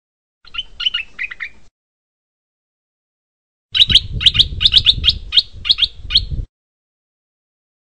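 Stripe-throated bulbul calling: a short phrase of chirps about half a second in, then a louder run of about a dozen quick, sharp notes from about four seconds in, with a low rumble under them.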